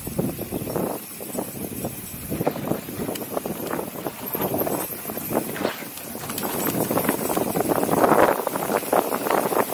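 Mountain bike rolling fast over a rough grassy dirt trail, heard from the rider's helmet: constant rattling and tyre noise with wind on the microphone, growing louder from about the middle and loudest near the end.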